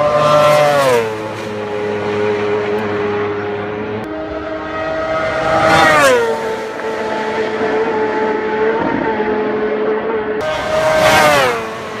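Racing motorcycles passing flat out, three times: about half a second in, around six seconds in, and near the end. Each engine's high note drops sharply in pitch as the bike goes by, then holds steady as it goes away up the road.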